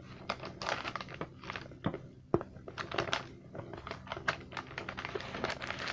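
Gold foil inner wrapper of a boxed chocolate being pulled and folded by hand: a run of irregular crinkles and small crackles.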